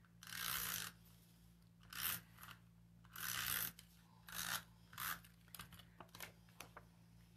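Cardstock and patterned paper being handled: about five short rustling swishes of paper sliding and shuffling, then a few light taps and ticks near the end.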